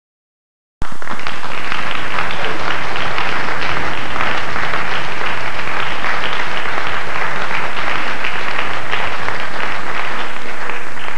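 Audience applauding, a dense steady clatter of many hands that cuts in abruptly about a second in.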